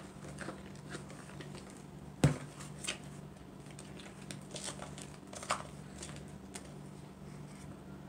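Hands squeezing and kneading sticky glitter-glue slime in a plastic bowl, as the glue is just starting to thicken: faint, scattered squishes and crackles, with one sharp tap about two seconds in.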